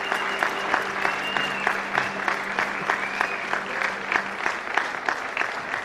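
Concert audience applauding at the end of a song, dense handclaps that ease off slightly near the end.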